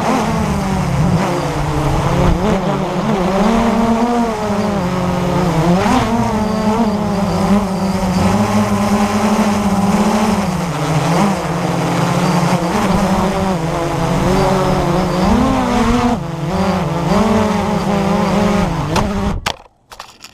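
Blade 350 QX3 quadcopter's brushless motors and propellers buzzing in flight, the pitch rising and falling as the throttle changes. The buzz cuts off suddenly near the end.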